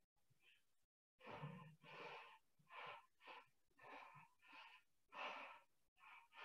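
A person breathing hard in quick, faint, rhythmic puffs while working out on a swim cord.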